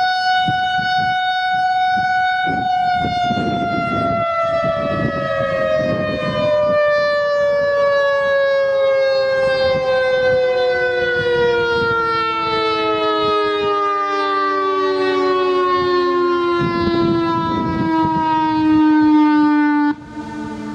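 Civil defense outdoor warning siren holding a steady tone for a couple of seconds, then winding down with its pitch falling slowly and evenly. It cuts off suddenly near the end.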